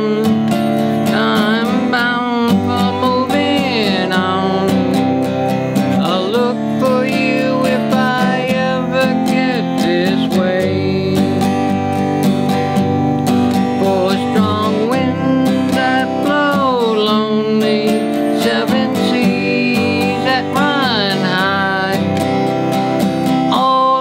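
Music: a steel-string acoustic guitar strummed in a steady rhythm, with a voice singing a folk melody over it.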